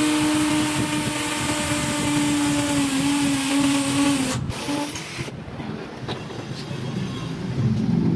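A motor running steadily with a high whine over a wide hiss, dipping slightly in pitch before it stops about four seconds in, then starting again briefly.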